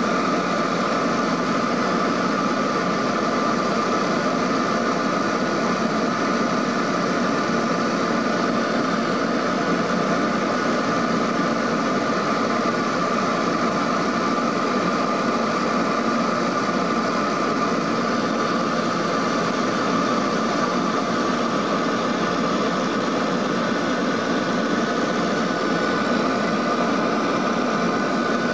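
Steady cabin drone of a Lockheed L-188 Electra in flight, heard inside the cabin: its four Allison 501 turboprop engines and propellers make an even rumble with a steady high whine over it.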